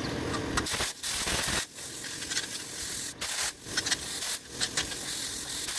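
Plasma cutter cutting steel plate: a steady, loud hiss of air and arc, broken several times by abrupt short dropouts.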